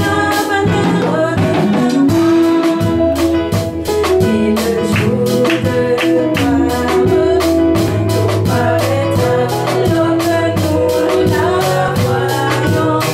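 A woman singing a hymn with a band, accompanied by sustained chords and a bass line, with drums keeping a steady beat.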